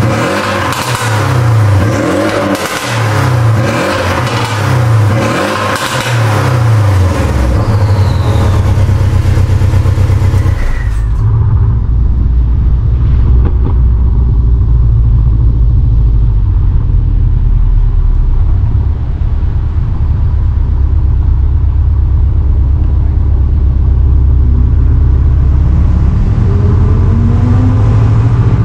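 Porsche 718 Cayman GTS's turbocharged 2.5-litre flat-four breathing through an aftermarket sport catalytic downpipe and X-pipe: a string of quick revs about once a second. About eleven seconds in it changes to a steady low drone of the engine under way, rising as it accelerates near the end.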